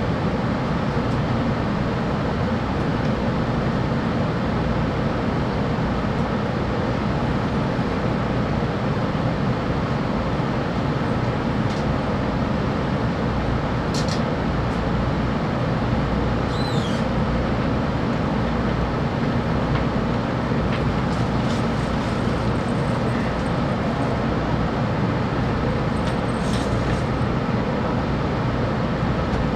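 Steady running noise of a JR West 700-series Rail Star Shinkansen at speed: an even low rumble and rushing hiss, with a few brief faint high squeaks.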